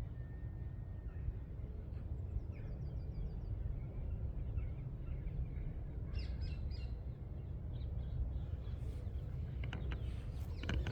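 Small birds chirping in open parkland over a steady low rumble on the microphone, with a quick run of short high notes about two seconds in and more chirps around six seconds. A few sharp clicks come near the end.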